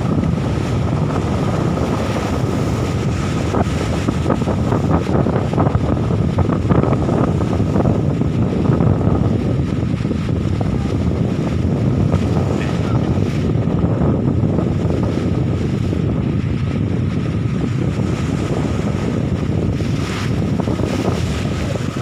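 Strong wind buffeting the microphone in a dense, steady low rumble, with choppy sea waves washing against a rock seawall beneath it.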